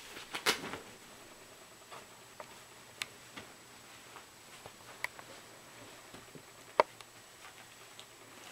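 Faint rustling of fabric and a few scattered light clicks as a kitten wrestles a sock on a bedspread. A brief louder rustle comes within the first second, and the sharpest single click comes about seven seconds in.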